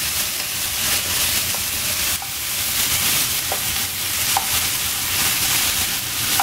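Diced vegetables (potato, carrot, cauliflower, capsicum, peas, onion) sizzling as they sauté in hot oil in a frying pan, stirred with a wooden spatula that gives a few light scrapes and taps against the pan.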